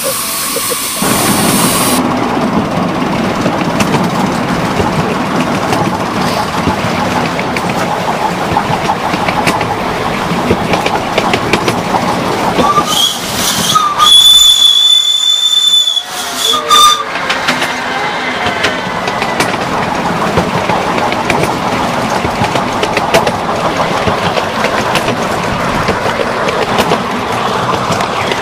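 Ride behind a 7.25-inch gauge miniature steam locomotive: steady running noise with wheels clicking over the rail joints. About halfway through its shrill whistle sounds, a short toot, then a long blast of about two seconds, then another short toot.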